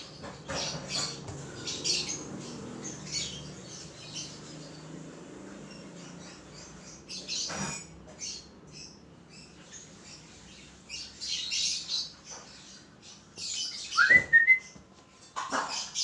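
Peach-faced lovebird giving short, sharp, high-pitched chirps and squawks in scattered clusters. A louder rising whistle comes near the end.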